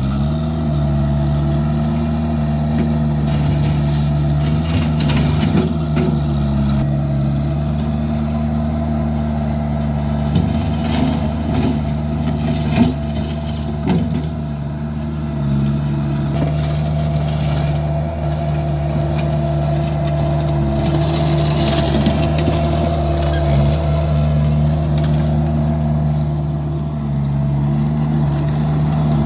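Vermeer mini skid steer's engine running steadily while it works, its pitch stepping up and down a few times as the load and throttle change. Occasional short knocks and scrapes are heard over it.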